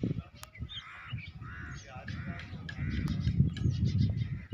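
Several crows cawing over and over, the calls overlapping, above a low, uneven rumble.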